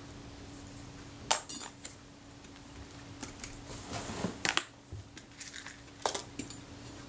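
Small metal camera parts, the back catch and its release cover, clicking as they are set down on a plastic cutting board, and a small plastic dish tapping down beside them. There is one sharp click about a second in, a cluster of taps around four seconds and one more near six seconds, over a faint steady hum.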